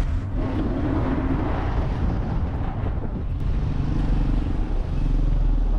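Porsche Cayenne SUV driving slowly, engine running steadily with a low hum and road noise. The lowest drone grows louder near the end.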